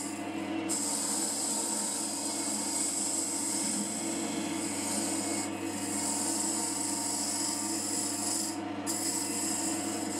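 JIB W0903X wood lathe running while a cutter on a sphere-turning jig scrapes the outside of the spinning wooden bowl blank, a steady hiss of cutting over the lathe's motor hum. The cutting hiss lets up briefly a few times as the cutter eases off the wood.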